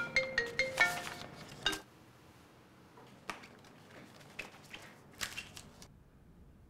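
Background music, a light melody of short, bright notes, stops about two seconds in. It is followed by faint, scattered clicks and rustles of a leather-covered notebook being handled and opened.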